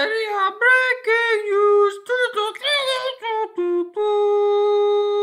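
A single high voice singing an unaccompanied intro jingle: a quick run of short sung syllables, then one long held note near the end.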